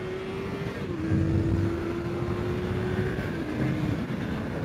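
Honda CBR650R inline-four engine pulling under way, its pitch creeping up and stepping down twice as it shifts up, over wind rush on the helmet microphone.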